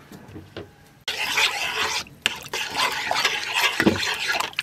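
Water sloshing and splashing in a metal pot as a hand kneads ripe tamarind pulp in hot water. It starts suddenly about a second in, after a few faint clicks, and breaks off briefly a couple of times.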